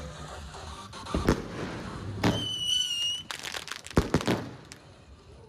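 Alpha Fireworks 'Venom' 30mm fireworks cake firing: a string of sharp shots and bursts at uneven intervals, with a whistle lasting nearly a second about two seconds in. The shots thin out towards the end.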